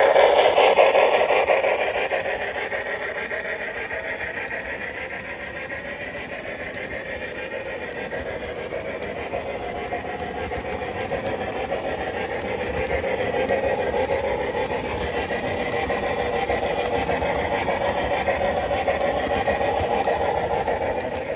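MTH O scale CNJ P47 Pacific model steam locomotive running on the track, its sound system and wheels making a steady, rapid clatter. It is louder at first, fades down after a few seconds, then builds again from about twelve seconds in.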